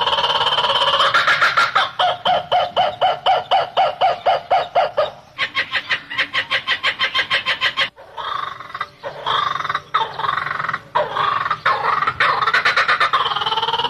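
Chickens clucking in fast runs of short clucks, with a longer drawn-out call at the start and again near the end.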